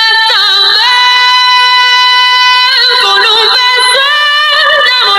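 A high-pitched singing voice holding long, drawn-out notes with a wavering vibrato, moving to a new note every second or so.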